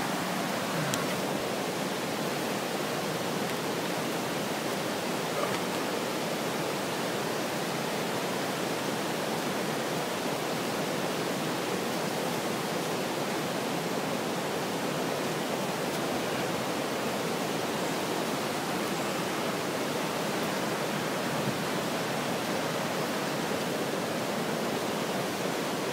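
Niagara River rapids rushing, a steady, unbroken wash of white water.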